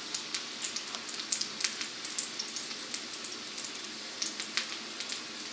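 Egg-and-milk-soaked bread slices frying in hot vegetable oil in a frying pan: a steady sizzle with frequent sharp crackling pops.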